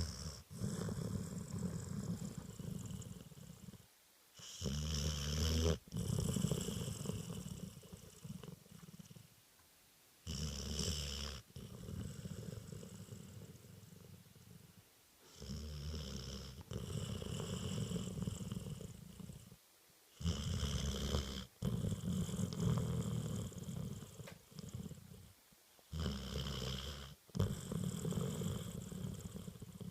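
Springer spaniel puppy snoring in its sleep: a short, deep, loud snore about every five to six seconds, each followed by a longer, quieter wheezy breath that fades away.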